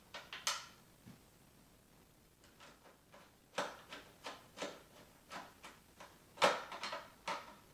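Screwdriver driving a screw into the plastic body of a Maytag upright vacuum during assembly: a string of irregular clicks and knocks of the tool and plastic parts, mostly in the second half.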